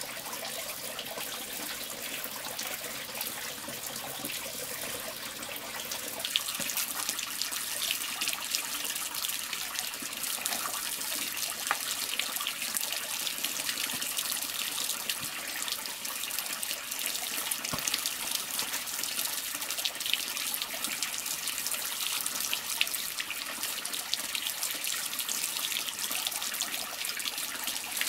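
Running water with many small splashes and drips, a little louder from about six seconds in.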